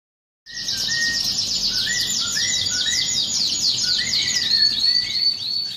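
Birds chirping: a fast, dense run of high chirps over lower whistled notes that repeat about twice a second. The high chirps turn into a series of rising notes near the end.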